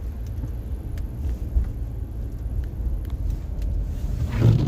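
Steady low rumble of a car driving, heard from inside the cabin, with a brief louder swell near the end.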